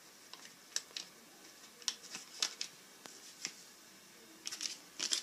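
Faint, scattered light clicks and scrapes at a mixing bowl as flour and baking powder are added to the dough mixture, with a quick run of clicks near the end.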